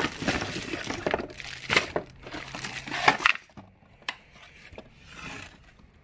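Cardboard box and plastic packaging being handled during unpacking: rustling and crinkling of plastic bags and cardboard, busy for about the first three seconds, then quieter with a single sharp click about four seconds in.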